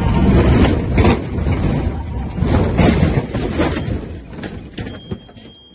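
Loud rumbling and jolting inside the cockpit of a light single-engine propeller plane as it runs off the runway across rough grass, in heavy surges that die down after about four seconds, with a few sharp clicks near the end.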